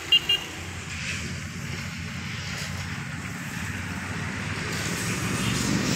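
Low, steady motor-vehicle engine rumble with wind noise on the microphone, growing a little louder toward the end. Two short high-pitched beeps come right at the start.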